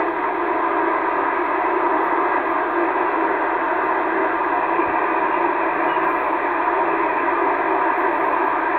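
Steady hiss and static of an HF amateur radio transceiver's speaker on an empty frequency, with no station coming through, while the tuning knob is turned.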